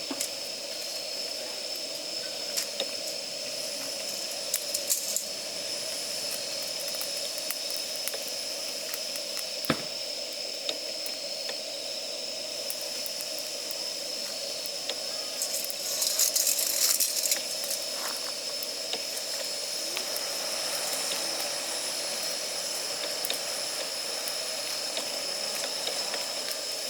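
Wood fire of damp firewood burning with a steady hiss, moisture steaming out of the wet logs. Scattered crackles and pops, with a denser run of crackling about two-thirds of the way through.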